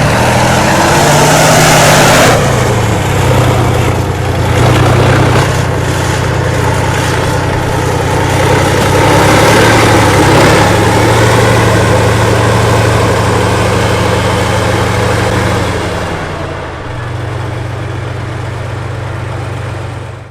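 T-72 tank's V-12 diesel engine running loud. It revs up at the start and again about halfway through, then settles to a lower steady note for the last few seconds.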